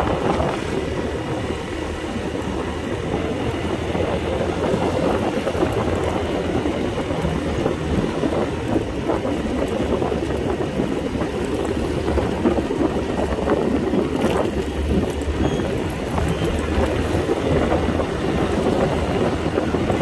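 A small fuel-injected scooter being ridden at a steady pace: its engine runs evenly under a constant rumble of tyre and road noise.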